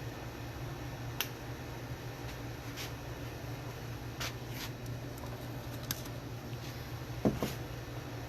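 Scattered light clicks and taps of small tools and parts being handled on a workbench during pickup wiring, over a steady low hum, with one louder knock about seven seconds in.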